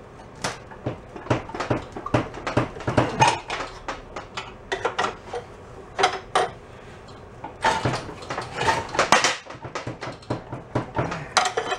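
Irregular metal clanks and rattles from a small motorcycle frame on a lift as it is levered with a long steel pipe to straighten it. The knocks come in several bunches, the densest near the end.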